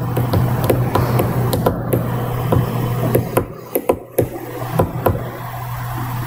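Irregular sharp taps or knocks, several a second, over a steady low hum.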